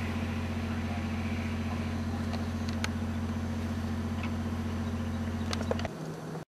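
Steady low hum of an engine running at constant speed, with a few faint clicks; it drops away about six seconds in.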